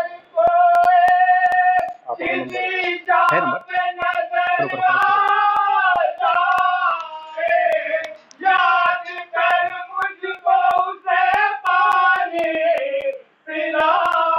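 A high voice singing a mourning lament (noha) in long, wavering held notes, phrase after phrase with short breaths between. Light clicks sound here and there.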